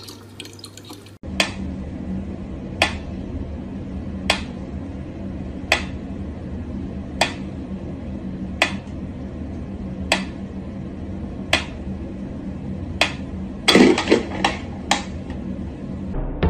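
Mechanical pendulum metronome ticking at a slow tempo, one sharp tick about every second and a half, over a steady low hum. Near the end a quick cluster of louder knocks and clatter breaks in.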